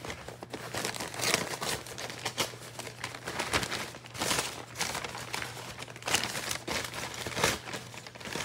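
Packing paper crumpled and rustled by hand in irregular crackles as a box of plants is unpacked, over a faint steady low hum.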